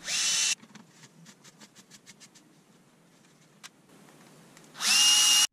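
Cordless screwdriver running in two short bursts, one right at the start and one near the end, each spinning up quickly to a steady whine as it drives screws to fasten the light's main lens back in. Light clicks of parts being handled come in between.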